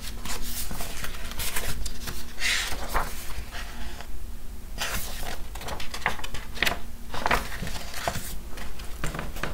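Paperback book being opened and leafed through: irregular rustling and flapping of the cover and paper pages as they are turned.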